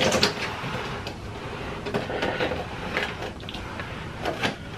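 Cardboard Happy Meal boxes being handled and moved about: scattered light knocks and rustles.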